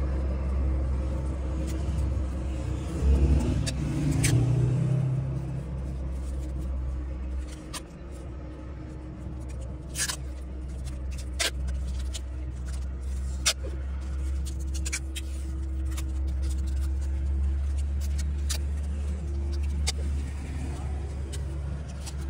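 A steady low engine rumble, louder for a moment about three seconds in, with scattered short sharp clicks and taps.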